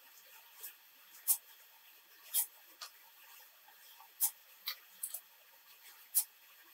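Short, irregular squishing and scraping sounds of fingers pressing and smearing soft clay on the neck of a coil-built pot, about one or two a second.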